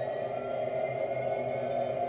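Class 66 diesel locomotive sound from an ESU LokSound DCC decoder, played through the Hattons model's small speaker: a steady engine drone with faint whistling tones that glide slowly upward.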